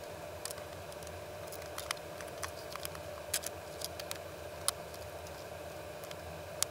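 Small irregular clicks and taps of hands handling and fitting plastic and metal parts on an airsoft AK electric gearbox, a sharper click about two-thirds of the way in and another near the end, over a steady faint hum.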